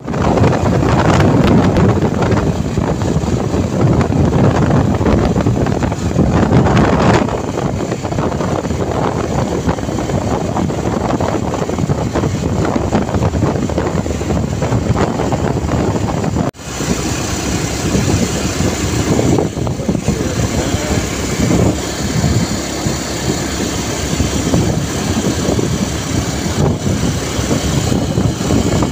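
Honda XR250 dirt bike's single-cylinder four-stroke engine running under way, heard from the rider's seat. The sound drops out for an instant about halfway through.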